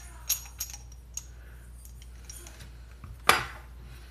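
Steel SKS rifle parts clicking and clinking as they are handled during reassembly: a few light metal clicks in the first second and one sharper metal clack about three seconds in.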